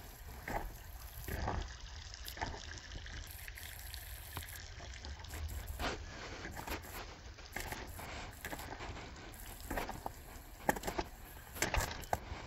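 Creek water trickling steadily, with scattered footsteps that come more often in the last few seconds.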